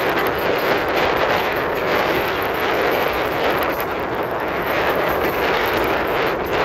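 Steady rush of wind and road noise from riding fast along a street on an electric two-wheeler, with no engine note.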